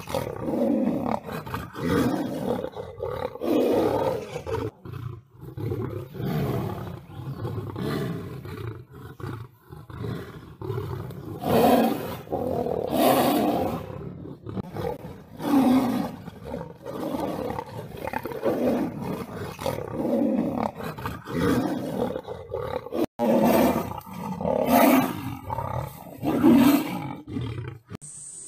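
Tiger and lion fighting, roaring in loud, rough bursts that come every second or two, one after another, with only brief breaks.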